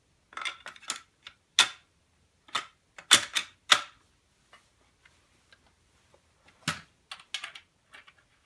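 Benelli Nova pump shotgun being reassembled: its barrel is slid onto the magazine tube and seated against the receiver, and the front of the gun is then closed up, giving a string of sharp metal and plastic clicks and clacks. The loudest clacks come about a second and a half in, twice around three to four seconds in, and again near the end, among smaller clicks.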